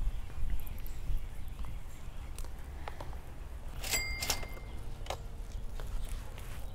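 A disc golf putt hitting the chains of a Dynamic Discs metal basket: two quick metallic clanks with a short ringing chime about four seconds in, then a lighter clink about a second later.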